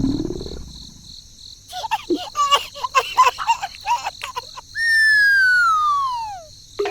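Cartoon sound effects: a quick run of short chirpy squeaks, then a long falling whistle that slides down in pitch for nearly two seconds, over a faint steady high whine.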